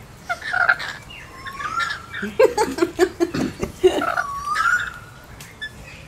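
Rainbow lorikeets chattering and calling at close range, including two rising whistled calls, mixed with sharp clicks and taps as they feed from a small ceramic cup.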